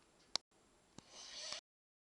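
A sleeping man's breathing between snores: two sharp clicks, the second about a second in, then a short breathy inhale that rises in loudness and cuts off suddenly.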